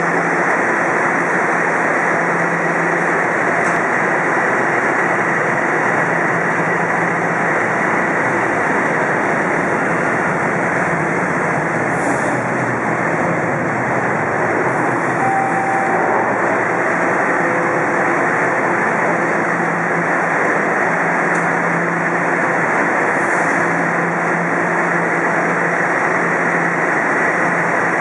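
Steady noise of Bombardier Toronto Rocket subway trains in an underground station, at an even level throughout with a low hum under it. A brief single tone sounds about fifteen seconds in.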